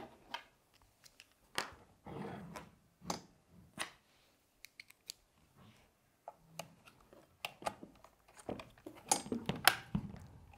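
Scattered light clicks, taps and brief scrapes of small metal and plastic parts being handled as a screw is pushed in and screwed into an airsoft rifle's barrel assembly, with a louder cluster of clicks near the end.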